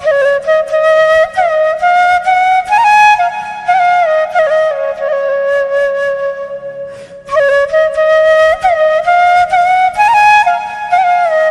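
Bamboo flute (bansuri) playing a slow, ornamented folk melody, with slides between notes and a short pause for breath about seven seconds in.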